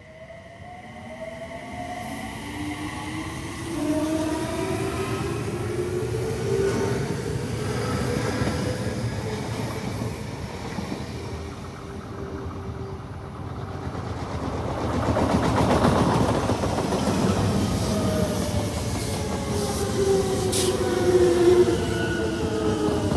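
Odakyu electric commuter trains: first a rising whine from an inverter-driven train accelerating away, then wheels clattering on the rails as a train runs by, loudest a little past the middle. Near the end a train's motor tones fall in pitch as it slows.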